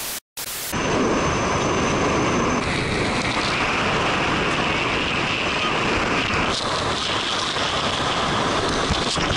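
A short burst of TV static with a brief cut-out, then a loud, steady rush of wind and road noise buffeting an action camera's microphone as it rides on the outside of a moving car.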